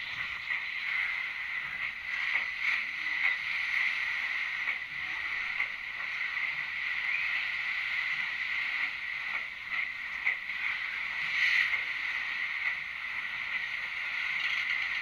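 Passenger train rolling past on a sea bridge: a steady wash of wheel and water noise with scattered faint clicks. The sound is thin and tinny, with almost no bass.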